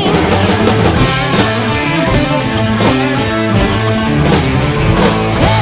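Hard rock band playing an instrumental riff on electric guitar and bass, driven by a drum kit, between sung lines.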